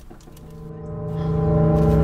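Sound-design drone: a sustained low, gong-like metallic tone with many steady overtones, swelling up over about a second and a half and then holding loud, a dramatic sting.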